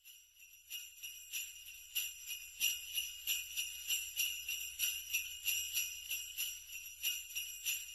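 Sleigh bells shaken in a steady rhythm, about three shakes a second, starting about a second in.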